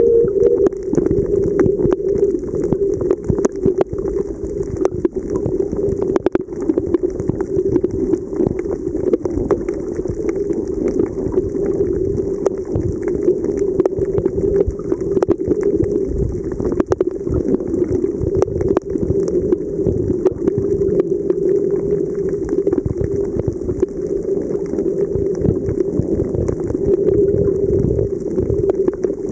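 Underwater reef ambience picked up by a camera submerged in the sea: a steady, muffled water noise dotted with scattered faint clicks and crackles.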